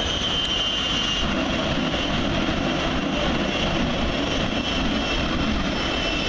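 Jet truck's jet engine running steadily, a loud even roar with a high turbine whine over it.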